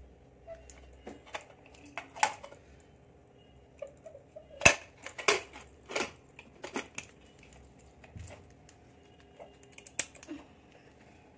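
Aluminium pressure cooker lid being fitted and locked: irregular sharp metal clicks and clanks as the lid is seated in the pot and the handles are pressed together, the loudest about halfway through.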